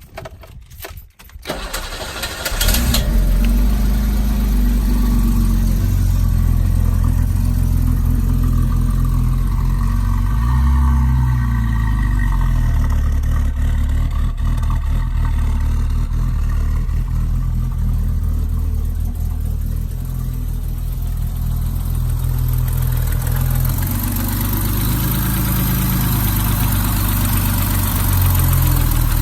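BMW E24's straight-six engine cranked on the starter for about two seconds, catching and then idling steadily, with a brief rise in engine speed about ten seconds in. The idle is one the owner thinks sounds like a slight vacuum leak.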